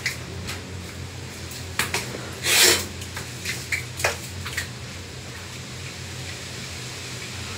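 Shower water spattering and splashing as a man rinses his hair under it, with scattered clicks and one louder, half-second splash about two and a half seconds in, over a steady low hum.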